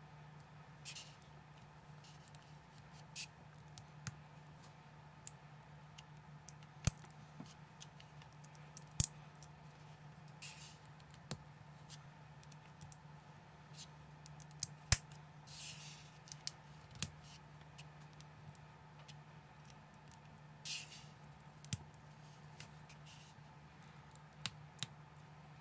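Small plastic building bricks clicking as they are pressed and snapped together by hand: irregular sharp clicks, a dozen or so over the stretch, with a few brief rasps as pieces slide against each other. A low steady hum sits underneath.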